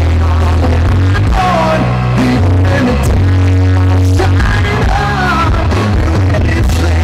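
Live rock band playing, with a sung melody over a heavy, steady bass line. The recording is heavily distorted from being made close to loud concert speakers.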